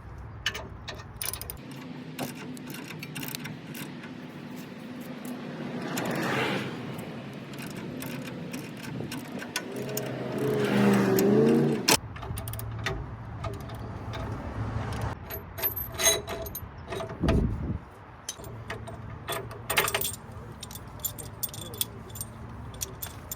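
Metal clinks and rattles of tools and steel parts being handled, most of them in the second half, with a louder rushing swell about ten to twelve seconds in.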